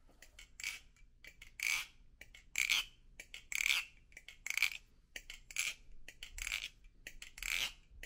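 Hazetac Jigsaw balisong trainer being flipped, its metal handles clacking shut about once a second in an even rhythm, each a bright, short metallic clack with a little ring.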